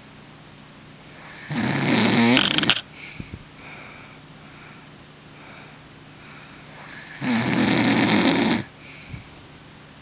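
A man snoring loudly in his sleep: two long snores about five and a half seconds apart, each followed by a short, quieter breath out.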